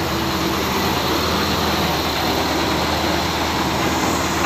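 Heavy diesel engine of a truck-mounted crane running steadily at a constant, low engine speed.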